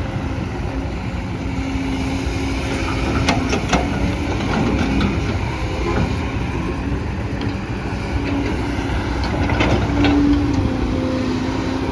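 Kobelco SK200 hydraulic excavator's diesel engine running under load while digging deep, its pitch shifting with the work. A few short knocks come about three to four seconds in and again near ten seconds.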